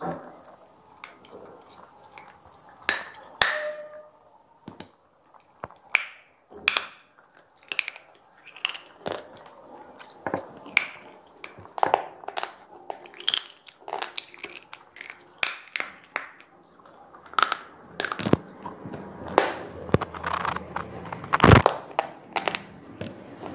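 Square pieces of slate being bitten and chewed: repeated sharp crunches and cracks as the brittle stone breaks between the teeth, coming thicker and louder in the last few seconds.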